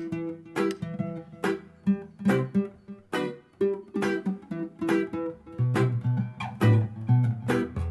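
Background music: an acoustic guitar strummed in a steady rhythm, about two strums a second, with lower notes joining after about five seconds.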